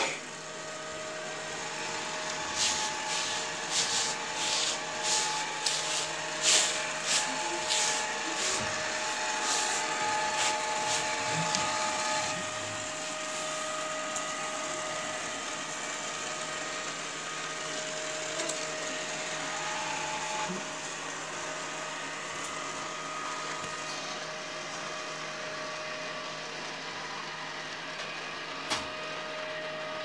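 Beko RS 2121 robot vacuum running: the steady whir of its suction fan and brushes, with a few thin steady whining tones in it. A run of sharp taps comes in the first dozen seconds, and one more near the end.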